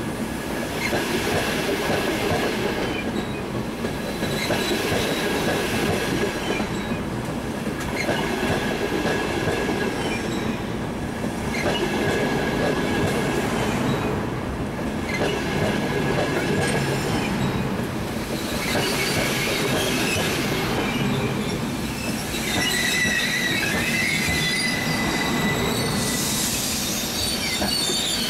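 A Frecciarossa high-speed train rolling along the platform: a steady rumble of wheels on rail that swells and dips about every four seconds, with sharp clicks over the track. Thin metallic wheel squeal rises near the end.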